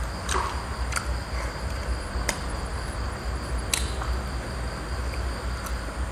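Crickets chirping steadily over a low, steady rumble. A handful of sharp clicks and smacks come at uneven intervals as roast chicken is torn apart and eaten by hand.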